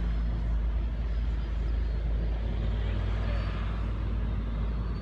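Steady low engine rumble with a constant hum, like heavy vehicles idling.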